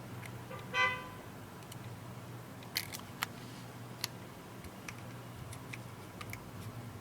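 Sharp clicks and light taps of small plastic and metal parts as a tablet is reassembled by hand, loudest around the third and fourth second. A brief pitched squeak comes just under a second in, over a steady low hum.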